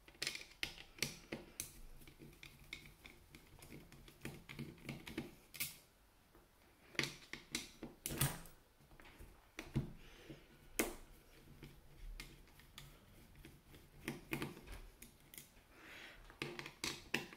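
Faint, irregular light clicks and taps of a screwdriver working the shell screws of a metal version 3 airsoft gearbox, with small screws being handled and set down.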